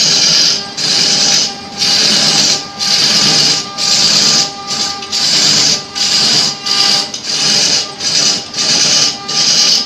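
Hand-held turning chisel cutting a large block of wood spinning on a lathe: a loud hissing scrape in repeated strokes, about five every four seconds, with short breaks between them.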